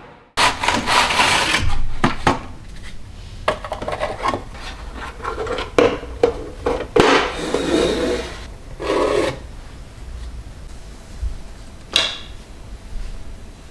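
Rubbing and scraping of objects being handled, with irregular light knocks and clatters.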